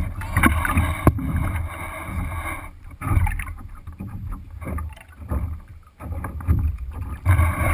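Lake water slapping and splashing against the hull of a Sunfish sailboat under way, in irregular slaps.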